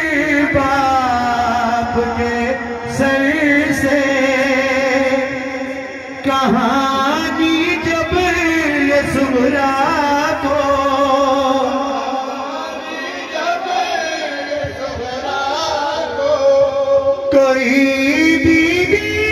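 Male voices singing a noha, a Shia mourning lament, in long, slowly wavering drawn-out lines.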